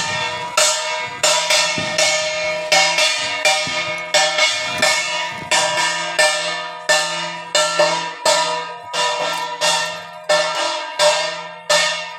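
Background music: a chiming, bell-like tune of struck notes, about two a second, each ringing briefly, over a steady low tone.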